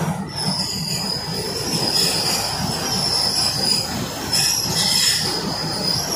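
Passenger train's wheels squealing on a curve: a steady high squeal over the low rumble of the running carriages.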